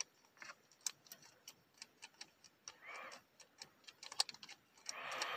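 Faint, irregular small clicks from a plastic Thor Happy Meal figure as its button is pressed to swing the hammer arm up and down, with two brief soft rushes around the third and fifth second.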